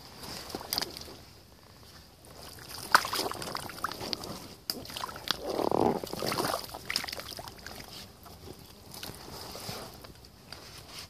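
Rubber waders and gloves moving through thick wet mud and shallow muddy water: irregular sloshing, squelching and small splashes, with a larger slosh about midway as the boots churn the mud.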